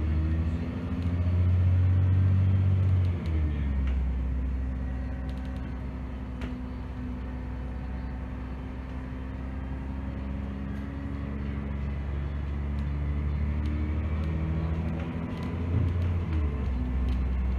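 Dennis Trident double-decker bus's diesel engine pulling hard under acceleration, heard from inside the bus. The engine note drops sharply about three seconds in as the automatic gearbox changes up, climbs steadily for a long stretch, then shifts again near the end.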